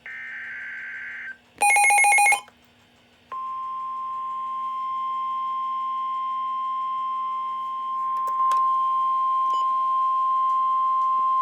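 NOAA Weather Radio alert signals: the end of the SAME digital header's buzzy data tones, with a short loud burst, and then the steady 1050 Hz warning alarm tone. The alarm tone is one long held beep, about nine seconds, that announces a warning is about to be read, here a severe thunderstorm warning.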